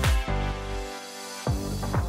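Background electronic music with a steady beat about twice a second; the beat pauses and the bass drops out around a second in, then the beat comes back near the end.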